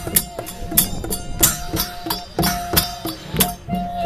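Traditional Lao procession music: large brass hand cymbals clashed in a steady beat about three times a second, with a held tone sounding along with them.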